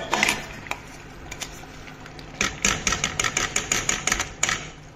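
Steel spoon scraping and clinking against a steel bowl, knocking thick ground green-chilli and onion paste out into a pan. There are a few clinks at the start, then a fast run of scrapes and clinks from about halfway until near the end.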